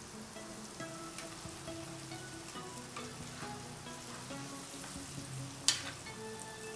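Flour-coated chicken pieces deep-frying in hot oil in a cast-iron skillet: a steady sizzle with scattered crackles. Near the end a metal spatula gives one sharp clink against the pan.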